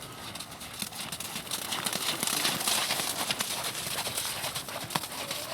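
A Thoroughbred's hoofbeats on the riding-arena footing, a run of short irregular thuds, with a louder rush of hiss for about a second and a half near the middle.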